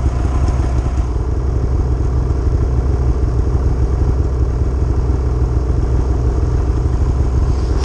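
Snowmobile engine idling steadily close by, with a low, even engine note and no revving.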